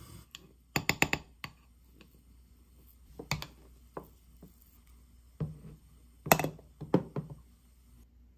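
Short sharp clicks and knocks of a spoon and containers against a small glass bowl while paste is scooped and seasoning poured, in several small clusters, the loudest about a second in and again about six seconds in.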